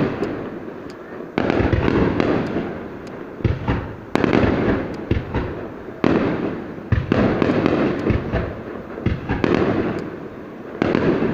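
Aerial fireworks bursting one after another, a loud bang every second or two, each trailing off in crackle.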